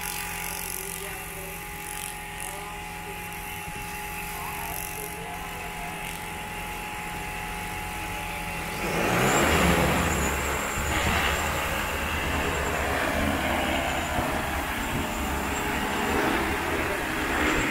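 Large multirotor spraying drone with its propellers spinning on the ground and a steady hum. About nine seconds in it throttles up to a loud, even propeller rush as it lifts off and hovers.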